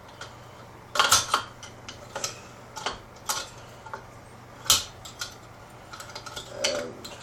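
Irregular metallic clinks and knocks from small Briggs & Stratton engine parts and hand tools being handled during disassembly. A cluster of clanks comes about a second in, and the loudest single knock a little past the middle.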